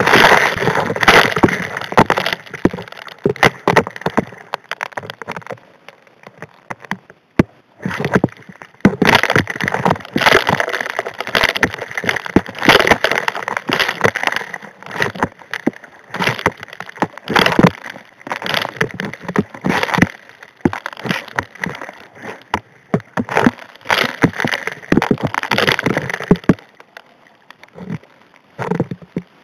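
Gravel and rocks up to about 1½ inches being sucked into the steel nozzle of a hand dredge, heard underwater: a dense, irregular clatter of rock striking steel over rushing water. The clatter eases off briefly about six seconds in and dies down near the end.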